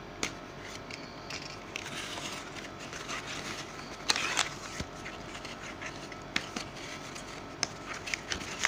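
Plastic mailing bag crinkling and rustling as it is pulled away from a cardboard box, with scattered clicks and scrapes and a louder crinkle about four seconds in.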